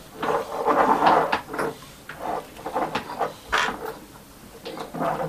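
Irregular knocks, clicks and rustles of hand tools being picked up and handled over a wooden workbench: tweezers and a soldering iron being brought to a small circuit board.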